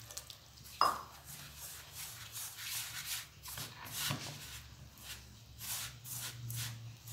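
Hands rubbing and squeezing crumbly wheat flour dough in a steel bowl, still dry at this early stage of mixing in water little by little: a series of rustling strokes. One metallic clink with a short ring about a second in.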